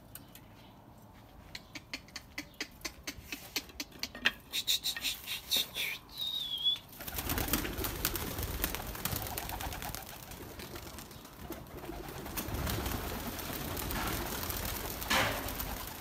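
A run of sharp clicks and rattles as the wire-mesh pigeon loft is opened. From about seven seconds in, domestic pigeons coo and flap as they leave the loft.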